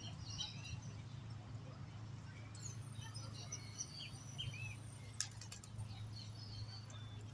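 Small birds chirping and calling on and off over a steady low hum, with a single sharp click about five seconds in.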